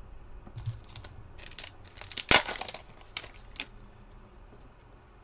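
A foil trading-card pack being torn open and crinkled by hand: an irregular run of sharp crackles and rips, loudest about two seconds in, dying away after a little under four seconds.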